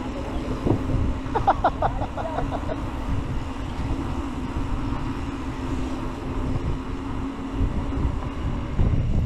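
Wind rumbling on the handlebar-height camera's microphone as an Orbea Wild FS mountain bike rolls along a concrete path, with a faint steady hum from the tyres. A brief rattle comes about a second and a half in.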